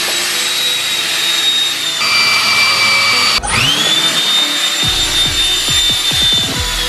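Electric ducted fan (62 mm, 11 blades) running at high speed in a 3D-printed blower housing: a steady high whine over rushing air. It cuts off abruptly about halfway through, then spins up again with a quickly rising whine that settles to a steady pitch.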